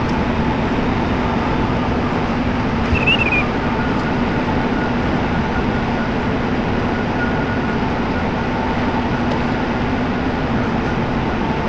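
Steady running of a machine with a constant low hum; a brief high squeak about three seconds in.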